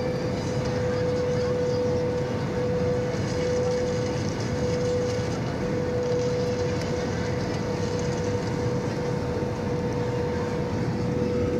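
Jet airliner cabin noise on approach: a steady rushing roar of engines and airflow with a constant mid-pitched hum running through it.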